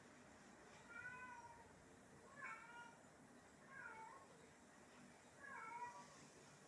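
A cat meowing, faint, four short meows about a second and a half apart.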